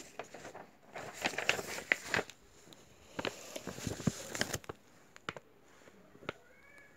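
Irregular clicks, taps and rustles of something being handled, clustered in the first few seconds and thinning out later.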